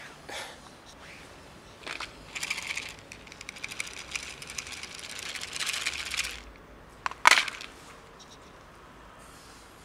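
Dry cat kibble rattling and rustling as it is poured into a plastic food box: a few seconds of dense small clicks in short spells, then one loud sharp crackle about seven seconds in.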